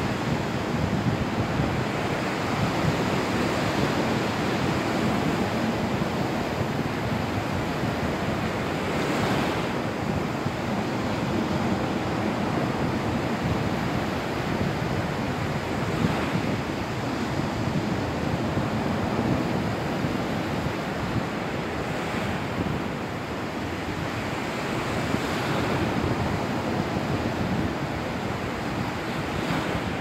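Light sea waves breaking and washing up over a sandy, pebbly shore: a steady surf hiss with a brighter swash every several seconds. Wind rumbles on the microphone.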